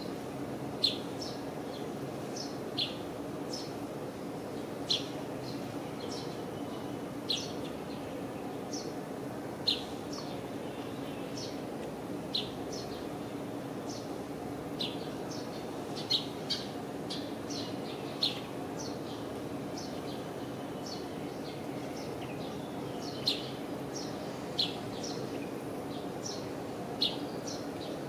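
Small birds chirping: short, sharp chirps every second or two over a steady low background hum.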